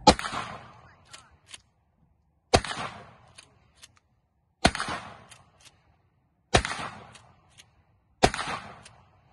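Mossberg 590A1 pump-action shotgun firing target-load birdshot: five shots about two seconds apart. Each shot is followed by a short echo and two clacks as the pump is racked back and forward.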